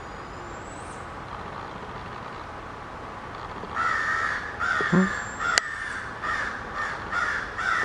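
A couple of angry crows cawing harshly in a quick run of about two caws a second, starting about halfway in, like a crow fight. A single sharp click partway through.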